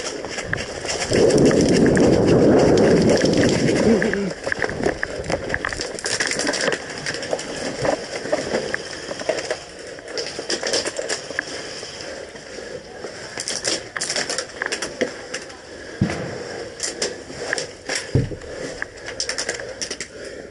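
Scattered sharp pops and clicks of airsoft guns firing, with a loud rustling of movement close to the microphone from about a second in, lasting about three seconds.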